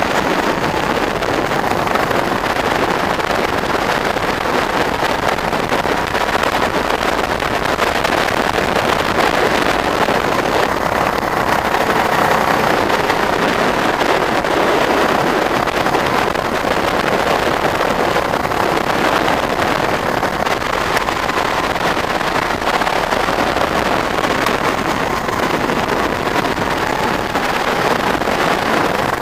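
Go-kart running at speed around a track, heard from the driver's seat: a steady, unbroken engine drone mixed with wind noise on the microphone.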